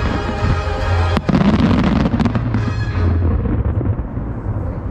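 Aerial fireworks shells bursting over show music. A sharp bang comes about a second in, followed by a low rumble and scattered crackles that die away as the music fades.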